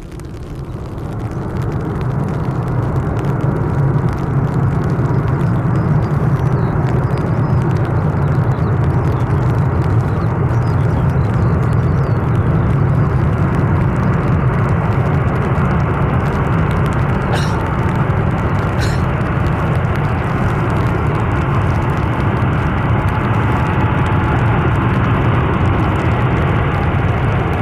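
Airbus A380 jet engines running during the landing rollout on a wet runway, a deep steady rumble that swells over the first couple of seconds and then holds level.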